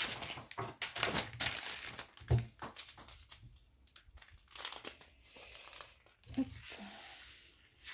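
Plastic bags of diamond-painting drills crinkling and rustling in short, irregular handling sounds, with one soft knock a little over two seconds in.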